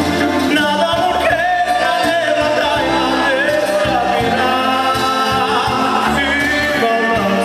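Carpathian folk band playing live: two violins carrying a wavering, gliding melody over cimbalom and plucked upright bass.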